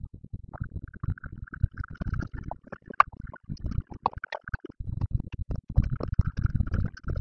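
Rapid, irregular low thumps and crackles of movement and handling picked up by a laptop's built-in microphone, fast-forwarded.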